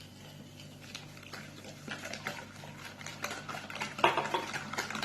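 Eggs and sugar being beaten together in a bowl: a utensil clicking and scraping against the bowl in quick, irregular strokes that get busier about two seconds in and are loudest near the end.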